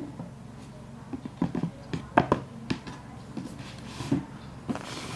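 A cardboard shoe box being handled: a run of light knocks and taps, the loudest a little after two seconds in, then a soft rustle near the end.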